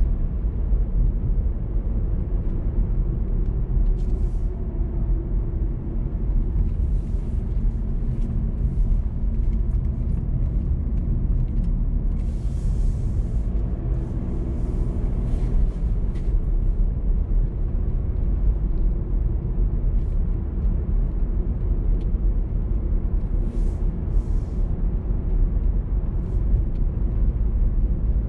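A car driving along a road: a steady low rumble of engine and tyre noise, with a few brief hissy bursts along the way.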